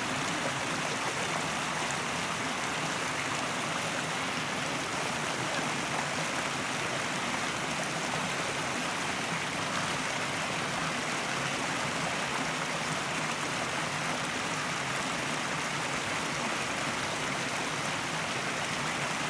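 Steady rushing of a river's flowing water, an even, unbroken hiss.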